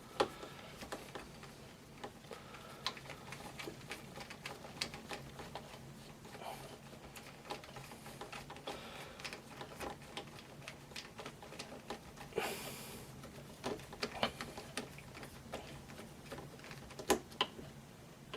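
Scattered light clicks and taps of a tool and rifle parts being handled as the pistol grip is taken off an AR-15, with a short scraping rustle about two-thirds of the way through.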